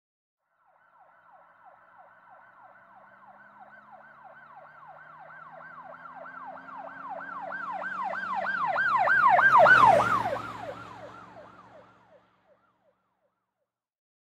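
Emergency vehicle siren in a fast yelp, about three sweeps a second. It grows steadily louder as it approaches, peaks about ten seconds in, then drops in pitch and fades away as it passes.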